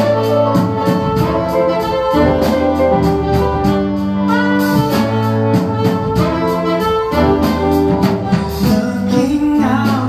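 Live jazz big band playing an instrumental introduction: held saxophone and brass chords that change every second or so over piano, with a steady beat.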